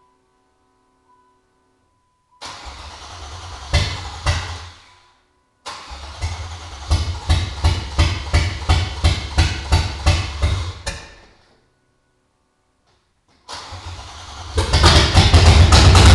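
Newly installed LT1 5.7-litre V8 of a 1994 Camaro Z28 being cranked for its first start. A short first try gives two loud pops. A longer second try cranks in a steady rhythm of about three beats a second without catching. On the third try, about fourteen and a half seconds in, it fires and keeps running loudly.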